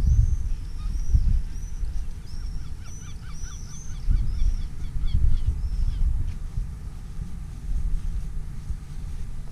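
Birds calling in a rapid run of repeated high, arching notes for the first six seconds or so, over a steady low rumble of wind on the microphone.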